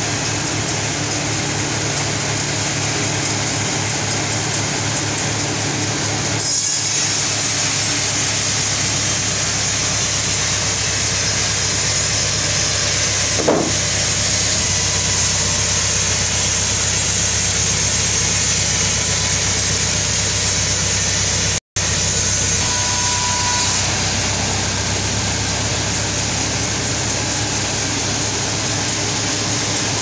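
Band sawmill running and sawing a large albasia log: a steady machine drone, with a louder, hissier cutting sound from about six seconds in until about twenty-four seconds in. A single short knock about halfway through, and the sound drops out for an instant a little after twenty seconds.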